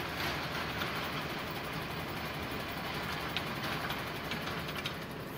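Truck's diesel engine idling steadily, heard from inside the cab, with a few faint ticks in the second half.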